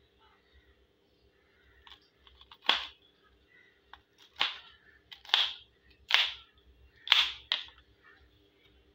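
Kitchen knife chopping okra on a plastic cutting board: about six sharp chops, roughly one a second, starting a few seconds in, with a few lighter taps before them.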